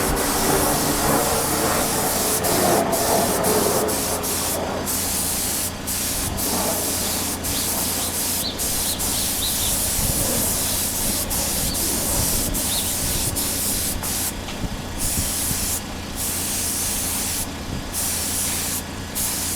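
Paint sprayer hissing steadily as green base coat is sprayed onto a motorcycle's front wheel, with short breaks in the spray every second or two.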